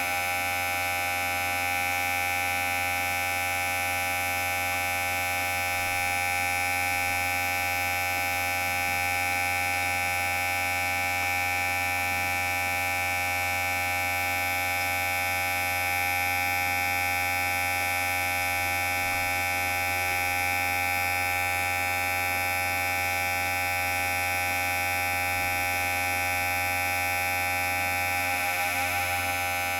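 Electric hair clipper running with a steady, even buzz.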